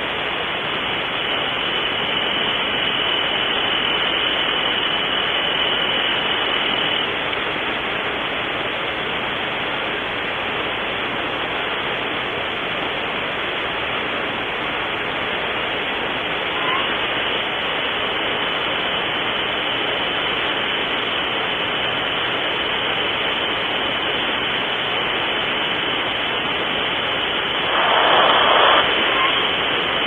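Steady hiss of static from the camera's audio, with a faint thin high whine. Near the end a louder, rough burst of noise lasts about a second.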